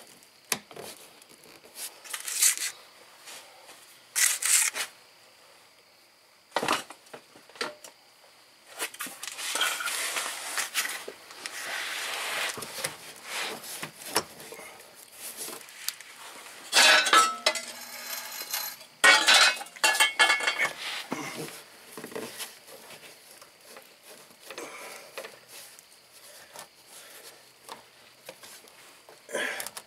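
Metal tools and parts clinking and clattering, with scattered knocks and stretches of scraping and rustling.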